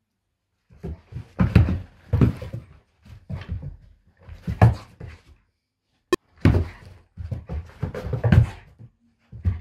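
German Shepherd pawing and pouncing at a laser dot on a carpeted floor: a run of irregular thumps and scuffles, with one sharp click about six seconds in.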